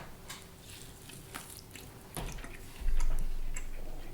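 Small wet clicks and smacks of people chewing and eating steak, with a loud low thump about three seconds in that dies away over a second.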